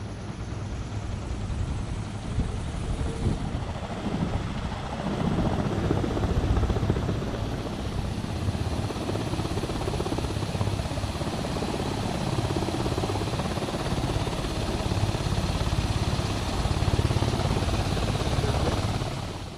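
Propeller of an Embraer Ipanema crop-duster driven by an experimental electric motor, turning during a ground run: a steady rushing whoosh without a combustion engine's firing note. It swells about five seconds in and holds steady.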